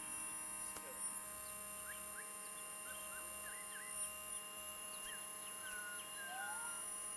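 Quiet ambient electronic drone: several steady held tones sounding together, with short chirping glides scattered through it.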